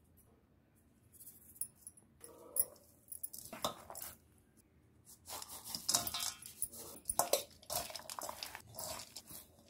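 A hand kneading and mixing soaked sabudana, mashed potato, herbs and crushed peanuts in a steel plate: irregular squishing and scraping against the metal, with small clicks. It starts after a nearly quiet first second and grows busier about halfway through.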